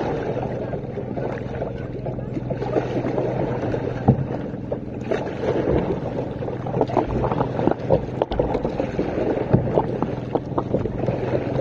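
Kayak paddle strokes splashing in the water, with scattered knocks and wind buffeting the microphone.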